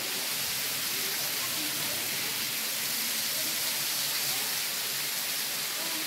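Steady, hissing rush of a roughly 120-foot waterfall pouring into the pool below.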